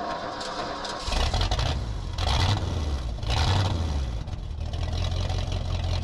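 Old Ford flatbed truck's engine catching about a second in, then running with a deep rumble that swells with a few revs.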